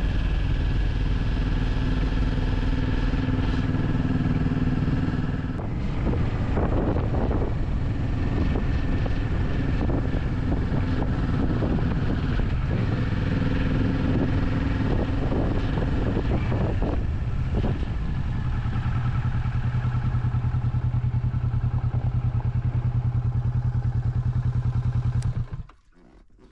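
Motorcycle engine running while riding, its note changing with throttle and gears. In the last several seconds it settles into a steady idle, then cuts off suddenly near the end.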